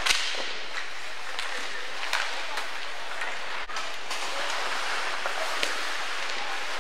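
Ice hockey game heard from the stands: a steady rink hiss with scattered sharp clacks of sticks and puck on the ice and boards.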